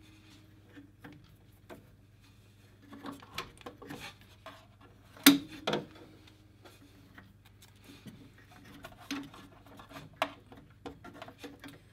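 Fingers handling soft plastic tubing at a washer's pinch valves: irregular rubbing and rustling with scattered small clicks, and one sharp click about five seconds in.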